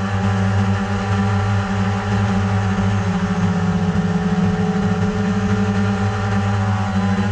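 ZLRC SG906 Pro quadcopter's brushless motors and propellers whining steadily in flight, heard close up from a camera mounted on the drone, at an even pitch.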